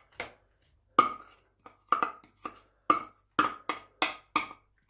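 Wooden spoon knocking repeatedly against a ceramic bowl while the last chopped onions are scraped out of it: about a dozen sharp knocks, two to three a second.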